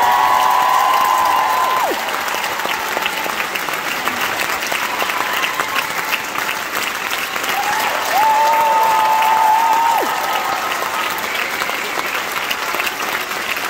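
Large theatre audience applauding steadily with dense clapping. Over it come two long, high, held cheers from the crowd: one dies away about two seconds in, and another runs from about eight to ten seconds.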